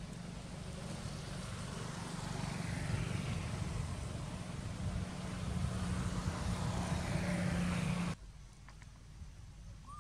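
A motor vehicle's engine running with a low hum, growing louder over several seconds, then cut off abruptly about eight seconds in.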